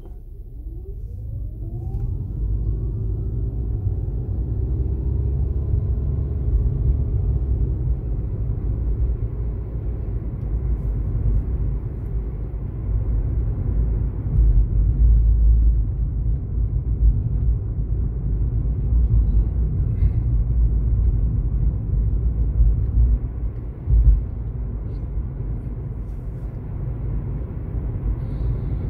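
Car engine revving up as the car pulls away, rising in pitch over the first couple of seconds, then a steady low engine and road rumble while cruising, heard from inside the cabin. A brief thump stands out near the end.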